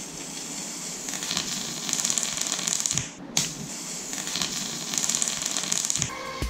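High-voltage Jacob's ladder arc buzzing and crackling between two upright wire rods. The buzz swells as the arc climbs, cuts out for a moment about three seconds in as the arc breaks at the top, and restrikes at once.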